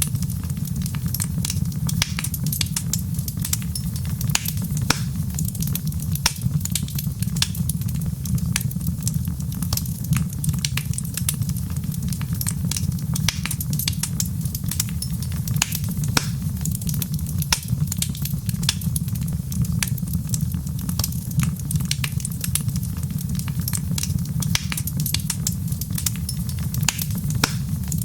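Wood fire crackling steadily: irregular sharp pops and snaps over a constant low rumble.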